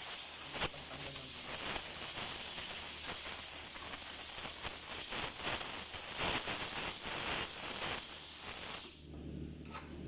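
Compressed air hissing steadily at a tire shop's air line, with scattered clicks and knocks, cutting off abruptly about nine seconds in.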